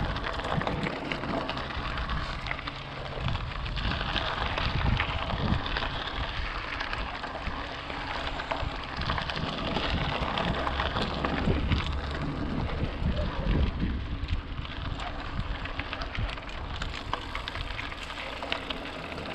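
Mountain bike ridden along a dirt trail: a steady rush of tyre noise over dirt and loose stones, with scattered clicks and rattles from the bike and wind buffeting the microphone.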